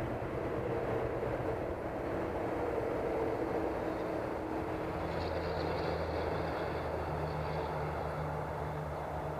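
Steady low engine drone from an FMS T-28 Trojan 1400 mm RC warbird fitted with a MrRCSound scale sound system, heard from a camera mounted on the model. A thin, higher whine joins about five seconds in.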